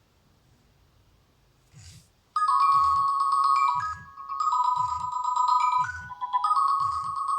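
Nokia N70 ringtone playing: a bright, bell-like melody of quick notes over a steady low beat, starting about two and a half seconds in after near silence and a short click.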